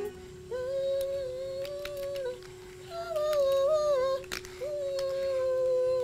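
A man humming three long, slightly wavering notes, a mouth imitation of a car engine as he pushes toy cars along the floor; the middle note is higher and drops away at its end.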